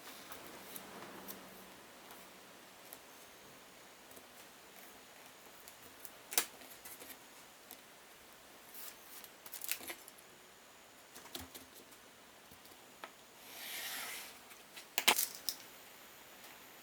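A few sharp light clicks and knocks scattered through a quiet workshop, with one short scraping swish a little before the last cluster of clicks.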